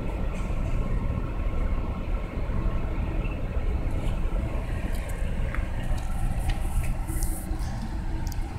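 SEPTA RL1A locomotive #60 at the head of the wire train running steadily: a low rumble with steady hum tones above it. A few short clicks are heard from about four seconds in.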